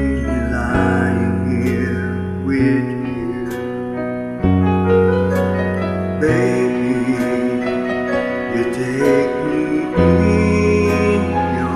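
Karaoke backing track of piano and electric keyboard playing slow sustained chords, the bass note changing every two seconds or so, with a man's voice singing over it in places.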